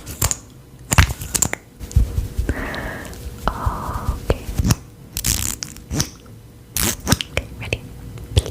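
A run of sharp clicks and short crinkling, rustling noises, with a hissing, rustle-like stretch about two and a half to four seconds in.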